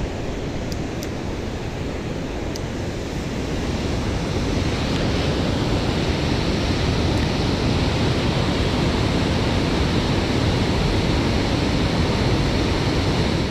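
Loud, steady rush of water pouring out through a dam's spillway gates and churning into the river below.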